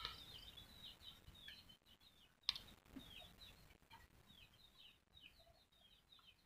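Faint, repeated short falling chirps of small birds, several each second. There is one sharp tap about two and a half seconds in.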